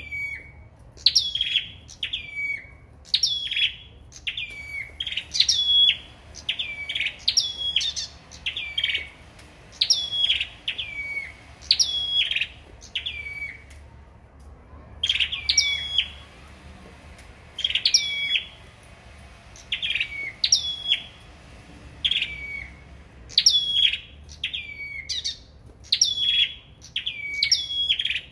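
Caged songbirds singing against each other. A short, sharp whistled phrase drops from high to lower pitch and repeats about once a second, with a brief pause just past the middle.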